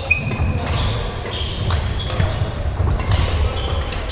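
Badminton play: rackets striking shuttlecocks in sharp cracks, several in quick succession, with short shoe squeaks on the court floor over a steady low rumble.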